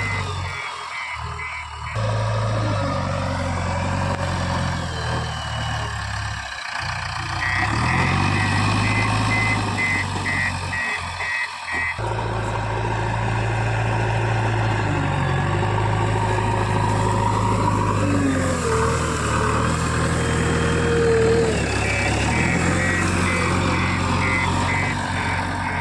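Diesel engine of a JCB 3DX backhoe loader running and revving up and down under work, with a reversing alarm beeping about twice a second at three points.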